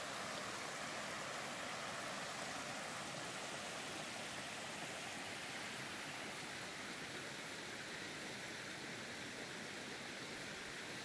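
Steady rushing of a small forest creek flowing over rocks, a little softer toward the end.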